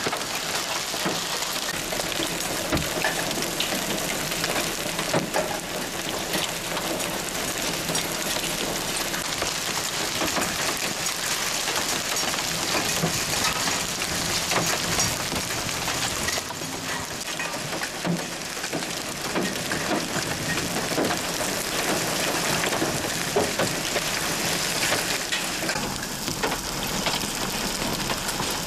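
Hailstorm: hailstones and heavy rain pelting down, a dense steady patter with many separate sharp hits.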